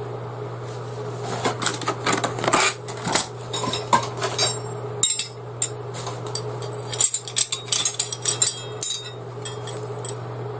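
Metal J-shaped rope-stopper stakes, used as tent pegs, clinking and clattering against each other as they are handled: a run of sharp metallic clinks with a short ring, in two busy spells. A steady low hum runs underneath.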